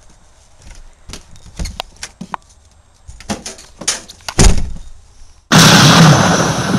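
A door handled and opened: doorknob clicks and rattles, then a heavy thump about four seconds in. About a second later a sudden loud burst of noise fades away over roughly two seconds.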